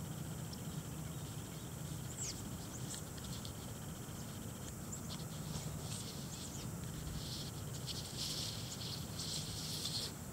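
Outdoor ambience: a steady high-pitched insect drone with a string of quick bird chirps, then scratchy rustling near the end.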